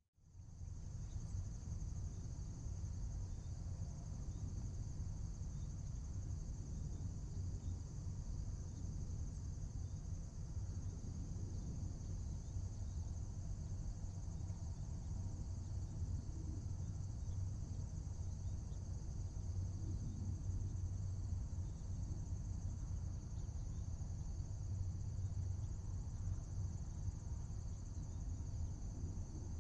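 A steady chorus of crickets, one continuous high trill, over a low background rumble. It comes in just after a moment of silence at the start.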